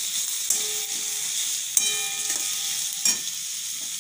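Sliced onions sizzling in hot oil in a metal karahi while a metal spatula stirs and scrapes them in three strokes. The first two strokes draw a short metallic squeal from the pan.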